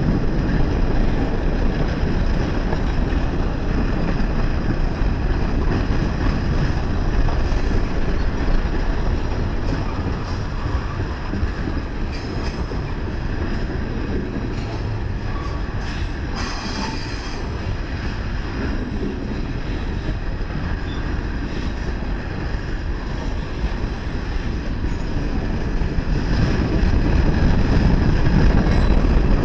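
Freight train cars, boxcars and a tank car, rolling past close by with a steady rumble of steel wheels on the rails. The sound eases a little in the middle and grows louder again near the end.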